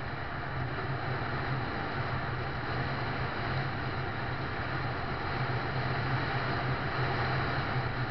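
A vehicle driving along a dirt track: a steady low engine drone under the rushing noise of tyres on the rough road surface.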